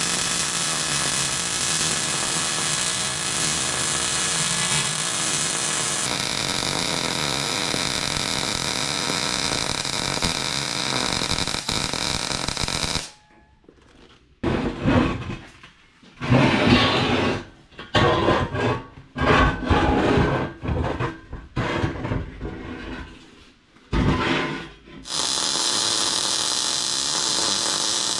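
Electric grinder running steadily on metal, its whine steady, with a shift in tone about six seconds in. From about halfway it stops and goes on in short, irregular bursts with brief silences between. It runs steadily again near the end.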